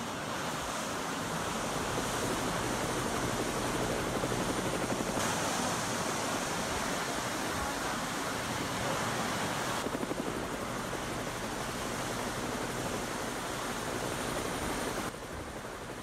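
Helicopter rotor and engine noise over rushing sea and wind: a steady wash of noise with a low hum under it, shifting abruptly in level and tone about five, ten and fifteen seconds in.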